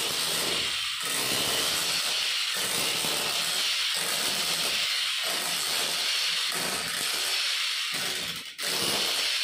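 Electric demolition hammer chipping a groove into a brick wall, its chisel bit hammering continuously into the brick. It stops briefly near the end and starts again.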